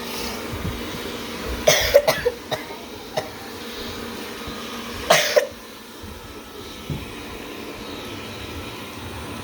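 A person coughs twice: a short cluster about two seconds in, and a single cough about five seconds in. Between them runs a steady low background hum.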